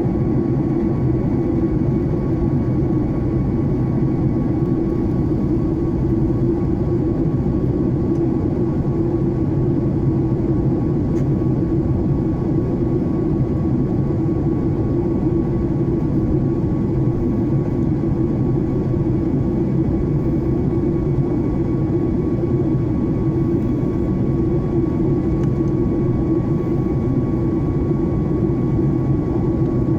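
Jet airliner cabin noise in the climb after take-off: a steady drone of engines and rushing airflow, with a faint steady whine above it.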